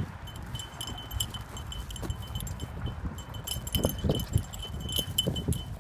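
A small metal bell jingling in quick, irregular shakes. Under it are low wind rumble and a few soft thumps.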